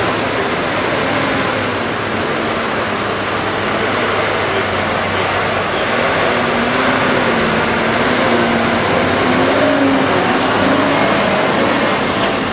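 Tigercat forestry skidder's diesel engine working under load as the machine crawls through deep mud, its pitch rising and falling.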